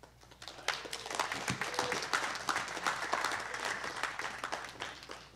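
Congregation applauding: many hands clapping, building up over the first second and tapering off near the end.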